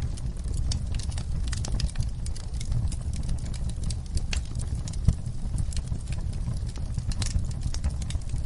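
Wood fire burning in a fireplace, crackling with many sharp, irregular pops over a steady low rumble of flames. One pop about five seconds in is louder than the rest.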